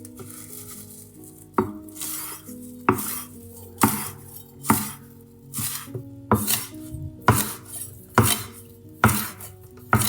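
Knife chopping food on a cutting board, a sharp stroke about once a second, some strokes coming in quick pairs, over soft background music.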